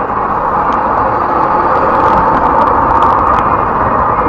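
Steady road and engine noise of a car driving in traffic, heard from inside the cabin through a dashcam microphone.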